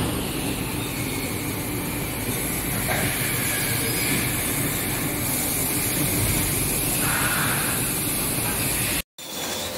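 Steady machinery noise of a zinc die casting workshop: a continuous rumble and hiss. It breaks off for a moment near the end.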